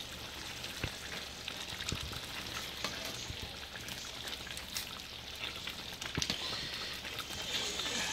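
Thick egusi soup of ground pumpkin seeds bubbling and sizzling as it simmers in an uncovered pan, with scattered small pops. The hiss grows a little louder near the end.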